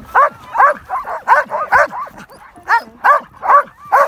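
Harnessed sled dogs standing halted in their traces, barking and yipping in a quick string of short, high barks that rise and fall in pitch, two or three a second, with a brief pause about halfway through.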